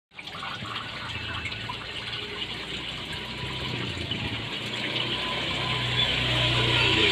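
Resun Penguin 4500 submersible pond pump running in water after its cable repair, water gushing and splashing over a steady low motor hum. The water sound grows gradually louder.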